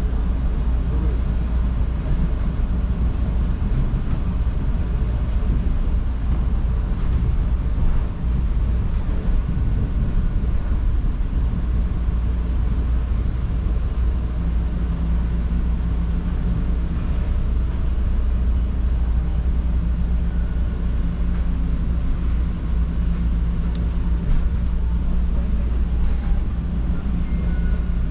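Steady low rumble of a moving subway train heard from inside the car, with a low motor hum that strengthens about halfway through.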